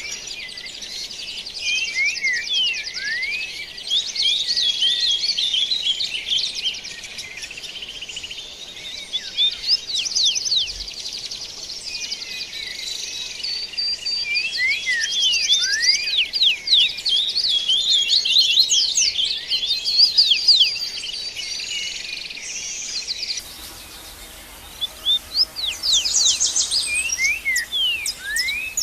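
Dawn chorus of several songbirds singing at once: dense, overlapping trills and quick sliding whistled notes. The singing thins out briefly about 23 seconds in, then picks up again.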